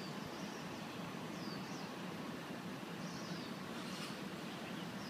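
Birds chirping in short, falling high notes several times, over a steady low background hum.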